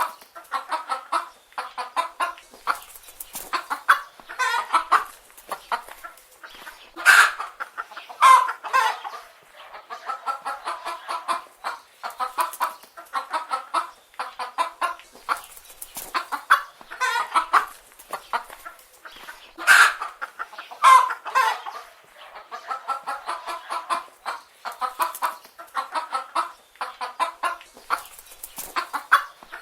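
Chicken hens clucking continuously in a steady run of short calls, with a couple of louder, sharper calls about a third and two thirds of the way through.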